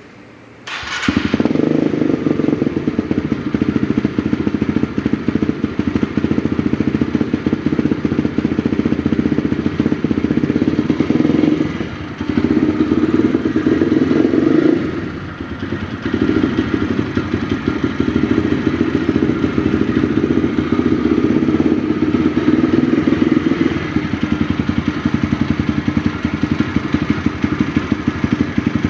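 Kawasaki KLX150's single-cylinder four-stroke engine starting about a second in, then running steadily. It dips briefly twice in the middle and settles to a lower, steadier tone for the last few seconds.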